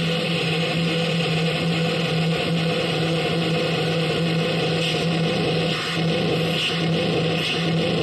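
Experimental sound machine producing a steady noisy drone: a held low tone under a dense hiss, with wavering higher tones drifting above it.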